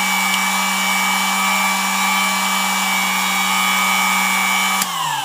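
Dumore sensitive drill press's brushed motor running at speed with a steady whine over a hiss, then winding down about five seconds in, its pitch falling. It has been dropping in speed on its own, which makes the owner think something may be wrong in the motor.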